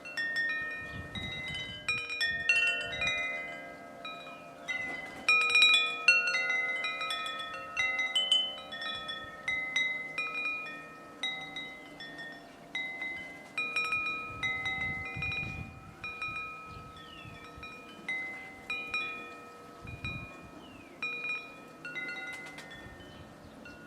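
Wind chimes ringing, several pitched tones struck at irregular moments and overlapping as they fade.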